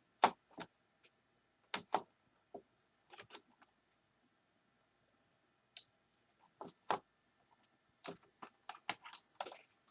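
Irregular plastic clicks and taps from a replacement laptop keyboard being handled and pressed into the laptop's plastic case, with a quicker run of clicks near the end. The keyboard is a little too large and will not seat.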